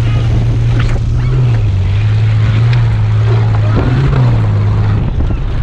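A vehicle engine running at a steady drone, its pitch lifting slightly a few times, with wind noise rushing over the microphone.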